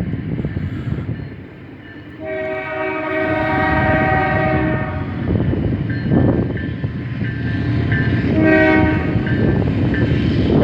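Freight locomotive air horn sounding a chord of several tones: one long blast, then a shorter blast a few seconds later, over the steady rumble of the passing train.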